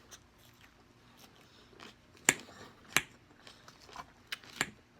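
Close-miked eating of a salad: mouth sounds of biting and chewing, with several sharp clicks, the loudest about two and three seconds in.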